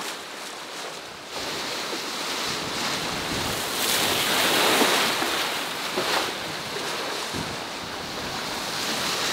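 Sea water rushing and splashing along a sailing catamaran's hull under way, with wind buffeting the microphone. The splashing is loudest about four to five seconds in.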